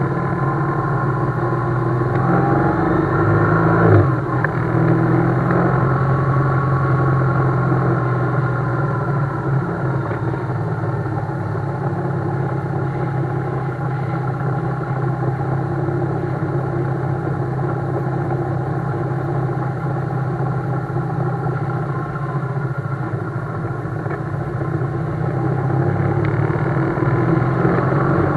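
BMW GS motorcycle engine running steadily while riding, its note holding fairly even, with one brief knock about four seconds in.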